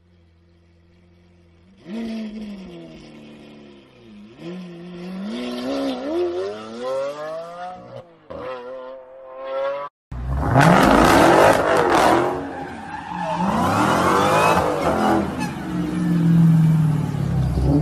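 Lamborghini Aventador V12 idling, then pulling away with its pitch rising and dropping through several gear changes. After an abrupt cut about ten seconds in, a Dodge Challenger's engine revs loudly as its tyres squeal through a smoky sideways slide.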